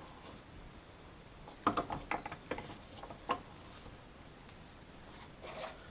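Small metal clicks and knocks from tools and parts being handled while working a stuck oil-pump part: a quick cluster about two seconds in, one sharper click a little later, and a soft scrape near the end.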